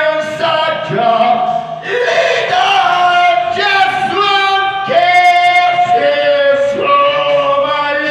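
A man singing a run of long held notes with no clear words, each note scooping up into pitch at its start.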